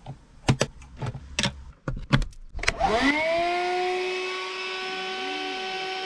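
A few clicks and knocks, then a Black & Decker Dustbuster Flexi Auto 12-volt car vacuum is switched on: its motor spins up with a quickly rising whine and settles into a steady run.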